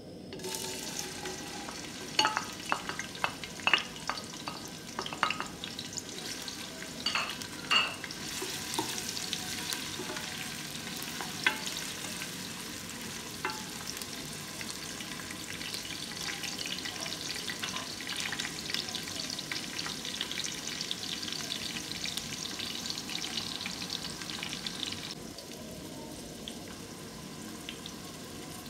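Chopped red onions frying in hot oil in an aluminium pressure cooker pot: a steady sizzle, with a string of sharp knocks in the first several seconds as the onions go in and a wooden spatula stirs them against the pot. The sizzle drops in level a few seconds before the end.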